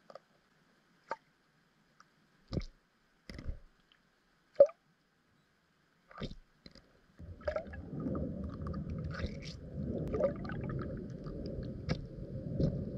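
Underwater sound through a submerged camera housing: scattered sharp clicks and knocks, then from about seven seconds a continuous low rumble of water noise with more clicks on top.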